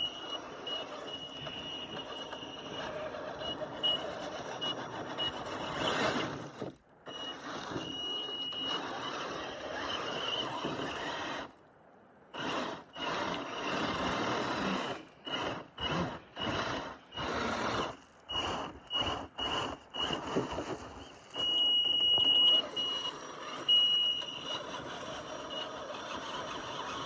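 Brushless motor and drivetrain of a Traxxas TRX4 Sport RC crawler whining under throttle as it struggles for grip climbing over tree roots, with a thin high-pitched whine that comes and goes. Partway through it stops, then runs in about ten short throttle blips before going steady again.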